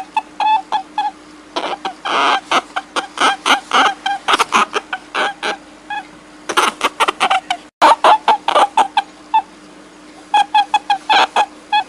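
Rapid runs of short, pitched animal calls, several a second, with gaps about halfway and near the end and a brief dropout around two-thirds through. A steady low hum sits underneath.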